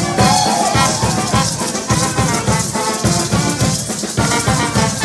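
Live band dance music with saxophone and trumpet over a drum kit keeping a steady beat, and maracas shaking along.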